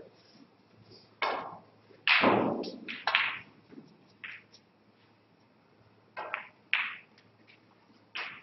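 Snooker balls clacking: the cue tip strikes the cue ball, and balls knock into each other and against the cushions in a string of sharp clicks, loudest about two seconds in, over a faint steady hum.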